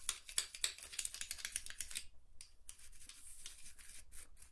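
Lint brush scrubbing dust and old oily grime off the metal rods and linkages inside a Singer 401A sewing machine's needle-bar compartment: quick scratchy brush strokes, with a short pause about two seconds in.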